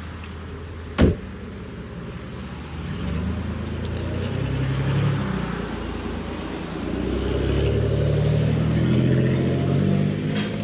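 A car door shuts about a second in, then passing cars run by twice with a low engine sound that swells and fades.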